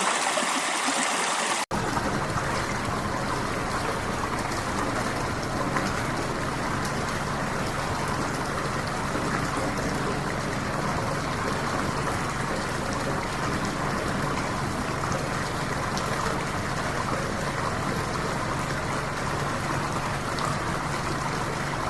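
A brief trickle of water cuts off abruptly, then a steady rush of running water with a faint low hum underneath.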